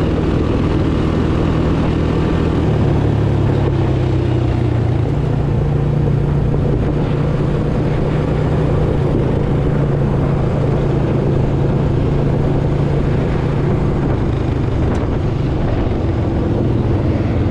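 Race car V8 engine running steadily at speed, its pitch stepping up about three seconds in and then holding.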